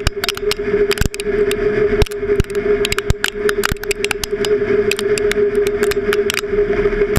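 Metal lathe running with a steady hum as the tool takes a cut on a spinning workpiece, with many irregular sharp clicks and ticks as the chips come off.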